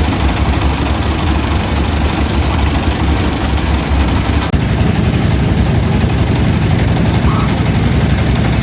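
Strong wind buffeting the microphone: a loud, steady, rough low rumble, shifting slightly about halfway through.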